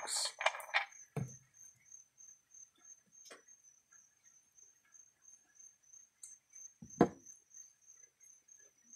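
Thin stream of old engine oil falling from a tractor's oil-pan drain hole and pattering faintly into the oil in a plastic drain pan, with a sharp click about seven seconds in.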